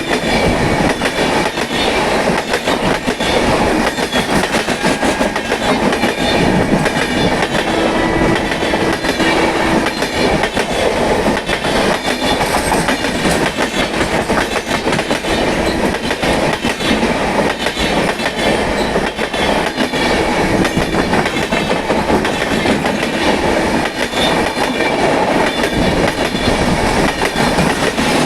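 Indian Railways train running at speed, its wheels clattering rhythmically over the rail joints with a steady rumble of coaches on the track.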